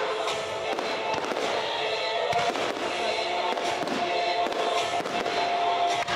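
Fireworks going off: many quick bangs and crackles from fountains and small aerial bursts, over steady music from the show's soundtrack.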